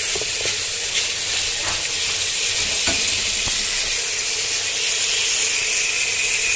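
Shredded chicken sizzling steadily in hot oil in a metal pot, with a few light clicks of a spatula stirring against the pot in the first three seconds.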